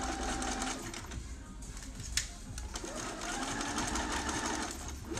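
Bernina sewing machine stitching a seam, running in short spurts: it stops about a second in, a single click follows in the pause, and it starts up again for a couple of seconds before stopping near the end.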